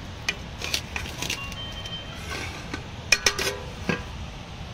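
Cooking utensils clinking and knocking against pots, several sharp strikes with brief ringing, including a cluster about three seconds in, over a steady outdoor hiss.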